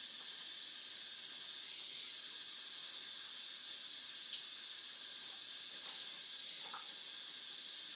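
Steady high-pitched hiss with a few faint clicks.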